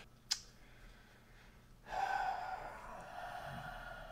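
A short click, then a person's long breath out, a sigh, starting about two seconds in and fading slowly.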